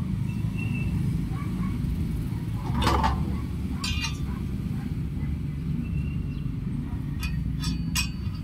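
Metal satellite-dish mounting bracket pieces clinking and clicking as they are handled and fitted together: a few light clinks about four seconds in and a cluster of sharp clicks near the end, over a steady low rumble.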